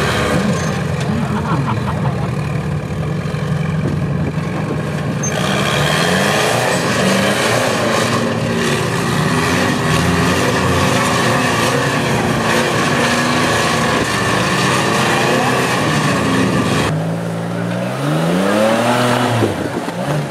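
Rock crawling buggy's engine revving up and down in repeated bursts as it claws up a rock face, with a rushing noise of tyres scrabbling on rock joining about five seconds in. Near the end the engine note sweeps sharply up in one hard rev.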